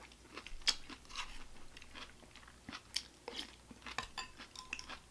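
Close-miked mouth sounds of a person chewing and biting food: irregular soft crunches and wet clicks.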